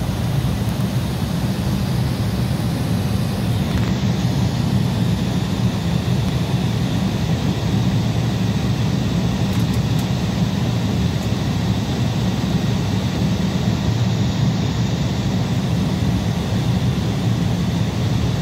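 Steady low drone of an airliner heard from inside its cabin, with no rise or fall.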